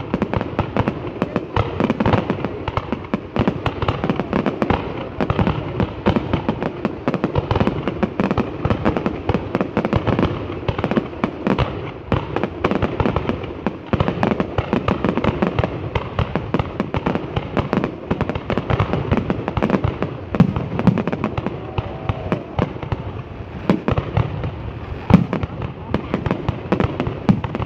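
Fireworks going off in a rapid, continuous barrage of bangs and crackles, with a few louder bangs near the end.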